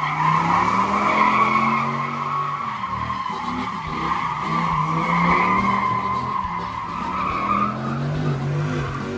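Dodge Ram SRT-10 pickup doing donuts: its rear tyres squeal continuously on concrete while the 8.3-litre V10 engine is held at high revs, its note rising and falling.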